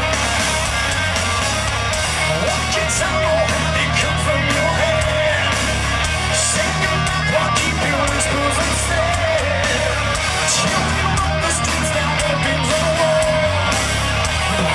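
A heavy metal band playing live at full volume: distorted electric guitars over a steady drum beat, a lead line wavering in pitch on top, heard from the audience.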